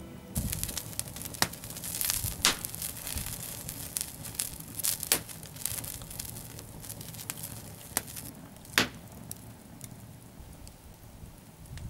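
Split-log wood fire crackling in a fire pit, with irregular sharp pops over a low hiss; the loudest pops come about two and a half, five and nine seconds in.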